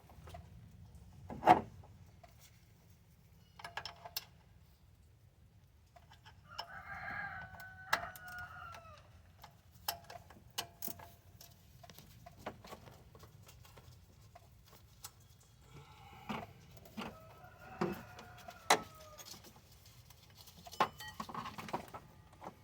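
A rooster crowing twice, each crow about two seconds long with a falling end, and a shorter call near the end. Scattered sharp clicks and knocks, including one louder knock near the start, over a low steady background.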